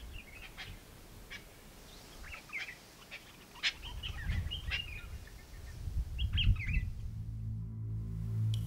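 Birds chirping and calling in many short notes, with a few dull low rumbles. About seven seconds in, low steady music tones come in.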